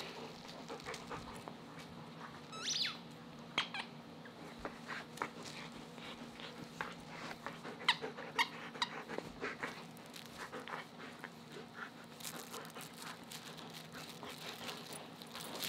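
German Shepherd chewing squeaky dog toys: scattered short squeaks and chewing clicks, with one longer rising squeak about three seconds in.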